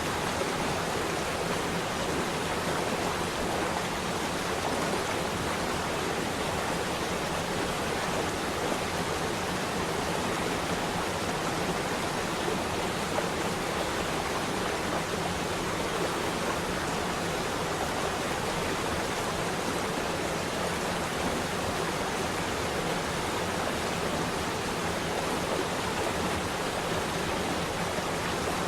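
Water flowing and rushing steadily, a continuous even splashing hiss of a stream or small fall with no change in strength.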